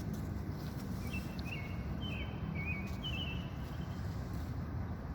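A bird giving a string of short, slurred chirps between about one and three seconds in, over a steady low outdoor rumble.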